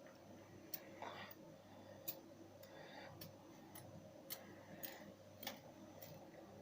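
Faint, irregular small clicks and ticks, roughly one or two a second, over a quiet room.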